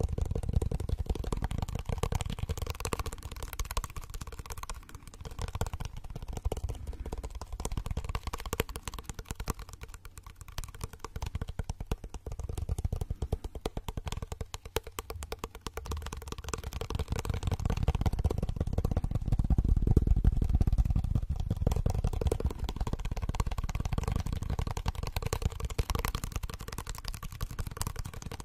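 Very fast, continuous fingertip tapping on a small handheld object held close to the microphone, a dense clatter of clicks over low thuds of handling. It is loudest about two-thirds of the way through.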